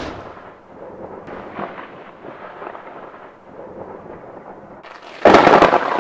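Low, dark rumbling noise, then a sudden loud crash with a crackling tail about five seconds in. It sounds like a thunder-like sound effect.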